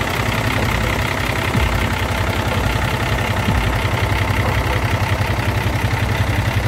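Hino heavy truck's turbocharged diesel engine idling steadily with an even, fast low beat, heard close up in the open engine bay.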